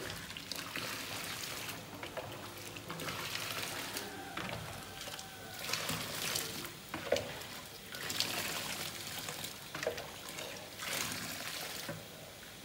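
Water scooped with a plastic dipper and poured over a whole raw duck into a large metal basin, in repeated pours and splashes, with a couple of short knocks about seven and ten seconds in.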